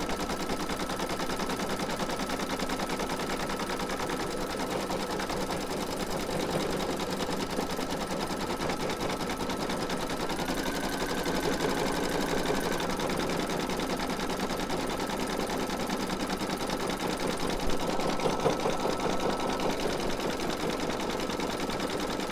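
Computerized embroidery machine stitching out a free-standing lace design: a rapid, even needle clatter over a steady motor whine, whose pitch steps up briefly about halfway through.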